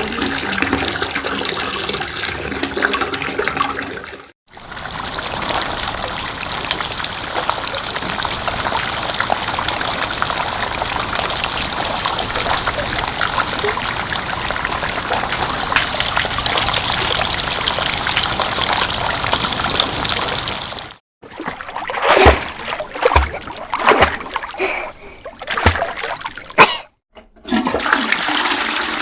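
A run of different water sounds with short silent breaks between them: first a few seconds of running water, then a long steady rush of flowing water, then a series of separate loud splashes, then more running water near the end.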